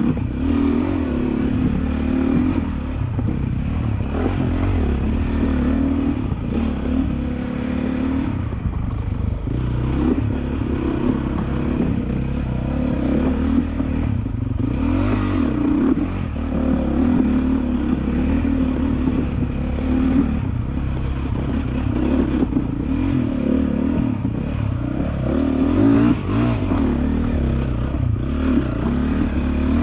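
2013 Honda CRF450R's single-cylinder four-stroke engine running on and off the throttle, revs rising and falling continually, heard from a helmet camera. The bike rattles and clatters as it rides over rocks.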